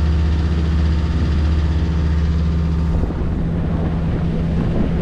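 Boat engine running with a steady low hum; about three seconds in it gives way to wind buffeting the microphone and water rushing past the hull.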